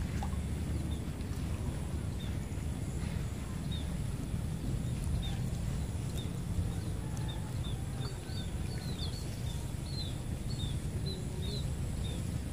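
Rural outdoor ambience. Short, high, repeated chirps from a small bird come more often in the second half, over a low steady rumble and a faint steady high whine.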